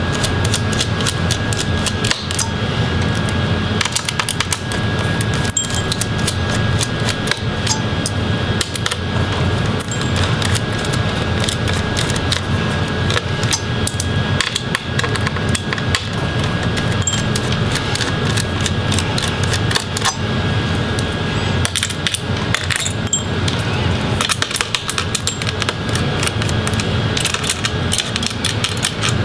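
Phillips screwdriver loosening the heatsink screws on a laptop motherboard: many small irregular clicks and ticks of the bit and screws against the metal heatsink, over steady background noise.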